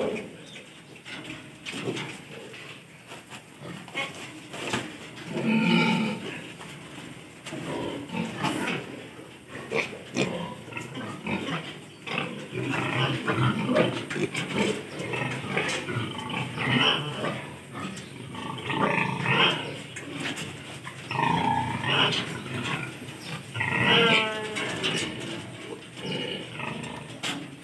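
A group of piglets grunting with short, repeated calls, broken by a few higher-pitched squeals.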